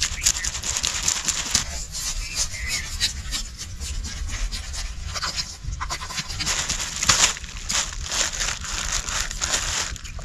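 A small blade scraping the scales off a large red snapper in rapid, irregular strokes, the scales rasping loose onto a plastic sheet.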